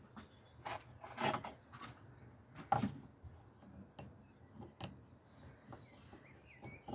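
Scattered light clicks and knocks of parts and tools being handled during fuel pump work, the loudest about a second and almost three seconds in, with a bird chirping faintly near the end.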